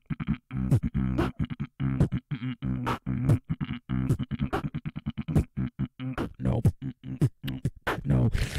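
Beatboxing into a handheld microphone: a fast run of sharp mouth-made drum hits mixed with short low hummed bass notes.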